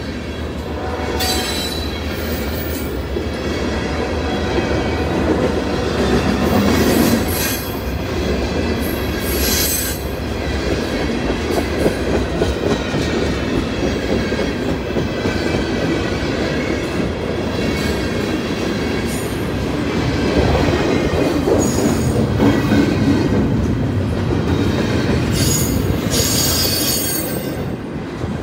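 Freight train passing: steel wheels rolling on the rails in a steady rumble, with high wheel squeals coming and going many times. A string of refrigerated boxcars goes by, then double-stack container well cars near the end.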